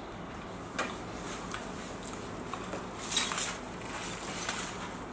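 Food being handled and eaten at a table: scattered short clicks and crackles over a quiet background, with the loudest cluster about three seconds in.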